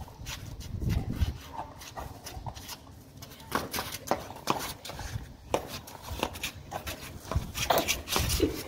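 Scattered scuffs and clicks of a man's sandals and a boerboel's feet and claws on brick paving during rough play.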